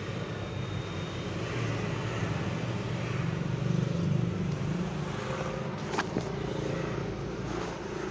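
A motor vehicle's engine running steadily with a low hum, with a couple of sharp clicks about six seconds in.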